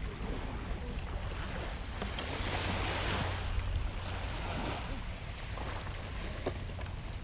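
Wind buffeting the microphone over the wash of surf, swelling louder around the middle.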